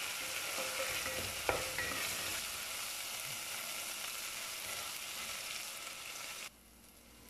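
Onions and ginger-garlic paste sizzling in hot oil in a metal pot while being stirred with a wooden spoon, with one sharp knock about a second and a half in. The sizzle drops away abruptly near the end.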